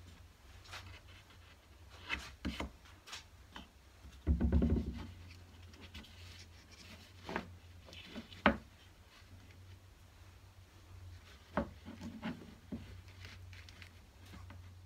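Glued, mitred wooden picture-frame pieces and the plastic corner blocks of a strap frame clamp being pressed and adjusted by hand during glue-up: scattered clicks and knocks, with a longer scuffing rub about four seconds in and a few sharp clicks later, over a low steady hum.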